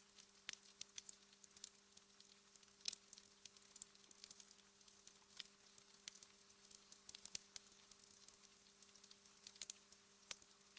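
Wood fire crackling softly in a fireplace, with scattered irregular pops and one sharper snap about three seconds in. A faint steady low hum sits underneath.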